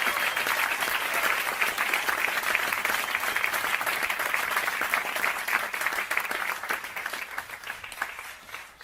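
Audience applauding and cheering after a song, steady and then dying away near the end.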